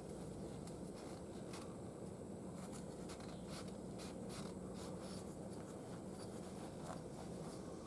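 Faint scratchy rustling and light clicks of hands handling parts and rags during the oil change, over a steady low hum.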